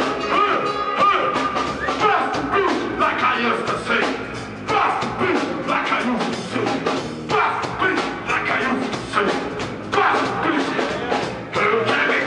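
A live reggae band playing with a steady beat and a lead voice singing over it, heard loud through the club's sound system.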